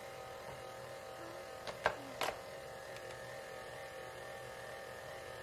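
Electric stand mixer motor running with a steady hum as it mixes the water, oil, salt, sugar and yeast for pizza dough, with a few light knocks about two seconds in.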